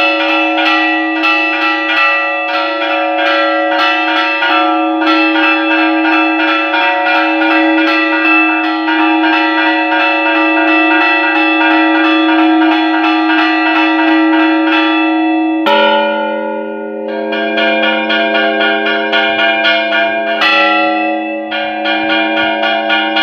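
Church bells ringing a rapid festive repique, with strokes coming many times a second, for the novena of the patronal feast. About sixteen seconds in, the pattern changes and a lower bell sounds.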